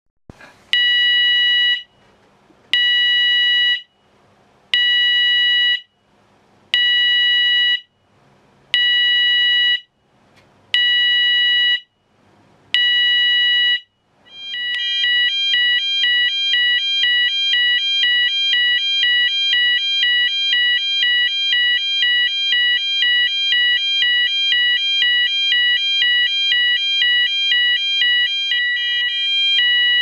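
Red triangular electronic fire alarm sounder under test, first giving one-second beeps about every two seconds. About fourteen seconds in it switches to a continuous two-tone sound, alternating between two pitches about twice a second.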